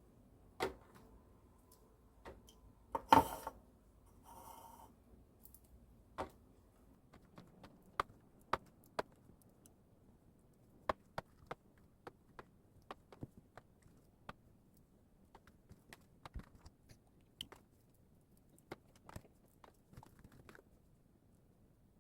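Scattered light clicks and taps of small objects being handled, with one louder clatter about three seconds in and a short rustle just after.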